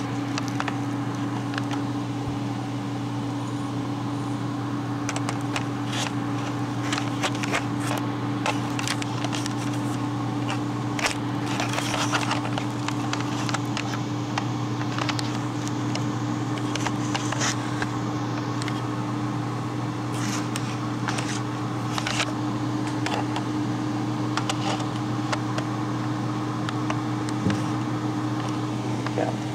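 T-fal air fryer running on its cooking cycle at 180 degrees: a steady fan whir with a low hum, and scattered faint clicks and crackles.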